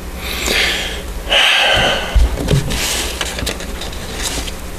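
A man's breaths and a sniff close to a microphone, with light rustling and a few soft clicks, over a steady low electrical hum.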